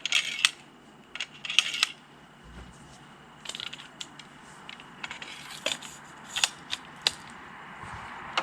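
Scattered metallic clicks and clinks of cartridges and rifle parts being handled as a Henry Big Boy lever-action .44 Magnum rifle is readied to fire.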